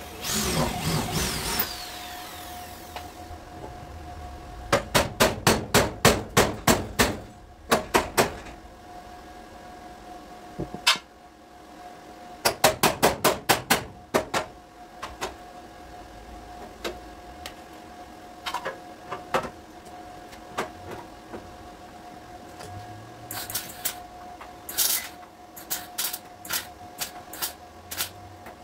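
A body-repair hammer striking car sheet metal in quick runs of taps, several a second, with pauses and scattered single blows between the runs. A brief loud rushing noise opens the stretch.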